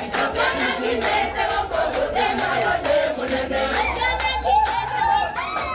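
A crowd singing and chanting together, with sharp rhythmic beats about three times a second.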